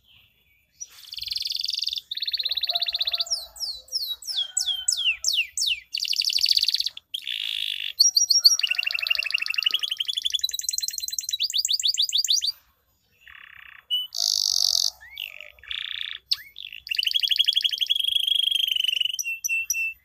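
Canary singing a varied song: buzzy chattering notes, a run of quick falling whistles, and long rapid rolling trills, with short pauses between phrases.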